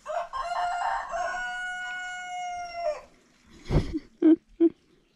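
A rooster crowing: one long, steady crow of about three seconds that tails off at the end. About a second later come three short, loud bumps close to the microphone.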